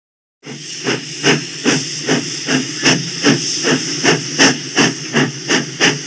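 Steam locomotive sound effect chugging: rhythmic chuffs about two and a half a second over a steady hiss of steam, starting about half a second in.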